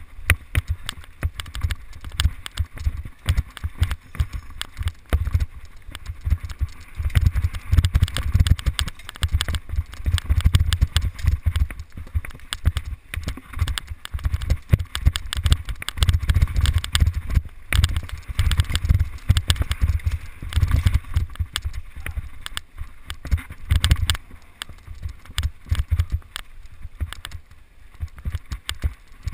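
Mountain bike ridden fast down a bumpy dirt singletrack, heard from on the bike: wind buffeting the microphone in uneven gusts of low rumble, over constant rattling and knocking of the bike and tyres on the rough trail.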